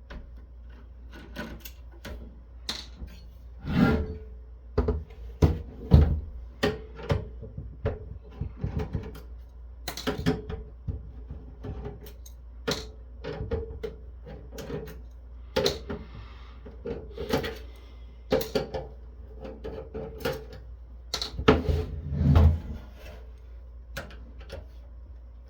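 Hand disassembly of a metal network-switch chassis: irregular clicks and small knocks of a screwdriver working the case screws and of parts being handled. There are a few louder thumps about four seconds in, about six seconds in and near the end.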